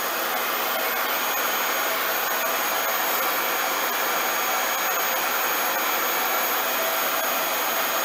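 RevAir reverse-air hair dryer running on low heat: a steady rush of air from its suction fan, with a thin high whine above it.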